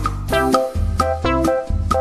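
Background music for children with a steady beat, a bass line and a melody of short notes.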